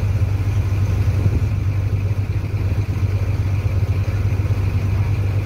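A river boat's engine running steadily with a low, even hum.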